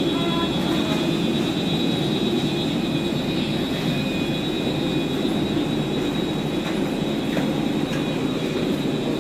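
Steady cabin noise inside an airliner on the ground: an even low rush with a faint high whine over it.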